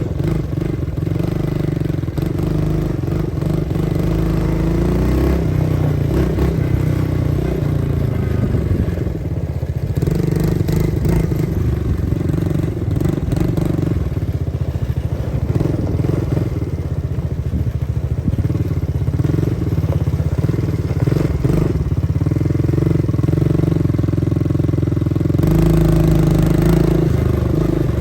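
ATV (quad bike) engine running steadily while being ridden, a little louder near the end.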